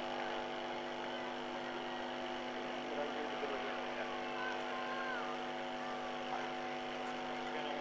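A steady hum of several held tones that does not change, with faint distant voices over it.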